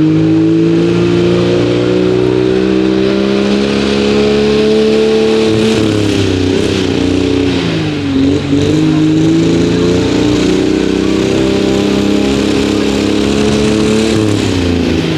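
Turbocharged diesel engine of a 7800 lb four-wheel-drive pulling truck running at high rpm under load on a sled pull. The pitch climbs slowly for about six seconds, sags to its lowest about eight seconds in, recovers and holds, then falls away near the end.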